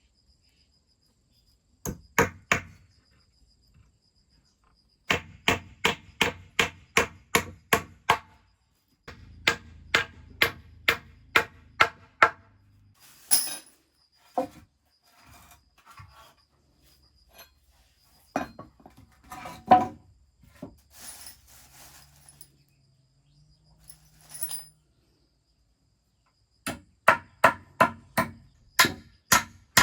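A hand tool striking wood in runs of sharp blows, about three a second, with short pauses between the runs.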